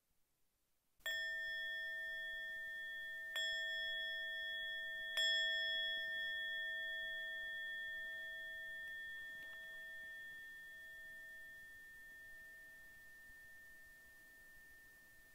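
Meditation bell struck three times, about two seconds apart, each strike ringing on and fading slowly, marking the close of the meditation session.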